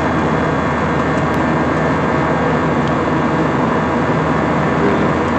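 Jet airliner cabin noise in flight, heard from a window seat beside the wing-mounted turbofan engine: a loud, steady rush of engine and airflow noise with a faint steady hum.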